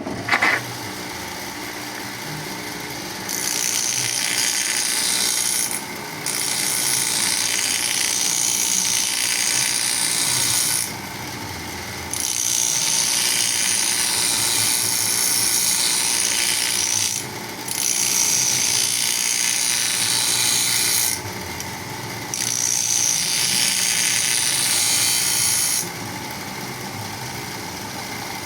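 Power grinder running steadily while a planer blade is ground on it: five long passes of loud, hissing grinding, each a few seconds long, with short breaks between them where only the machine's running is heard.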